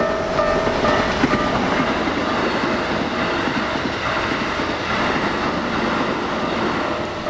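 A train passing through a level crossing, its wheels running loudly over the rails. The crossing's warning bell rings underneath, heard clearly only in the first second before the train's noise covers it.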